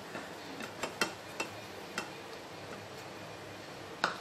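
Spatula tapping and scraping in a nonstick frying pan, a few light clicks and a louder knock near the end, as fried cashews and raisins are scooped out of the ghee.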